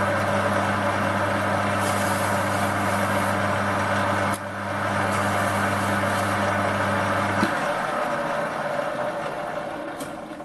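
Metal lathe running, with a steady electric-motor hum under the whir of the spindle and gearing. About seven seconds in the motor hum stops and the spindle coasts down, growing quieter.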